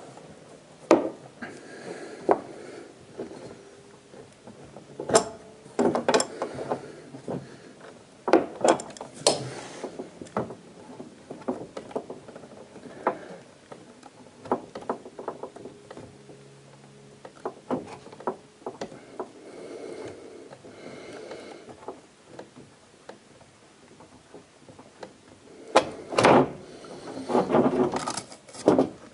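Scattered metallic clicks, knocks and scrapes of a wrench and hands working the brass compression nut on a dishwasher's copper water supply line, loosening it from the inlet valve fitting. A denser run of louder knocks comes near the end as the line is pulled free.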